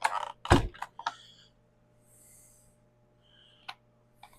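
Recoil starter of a two-stroke Stihl MS270 chainsaw being pulled to prime the engine, which turns over without firing. There is a short rasping pull ending in a thud about half a second in, then a couple of faint clicks.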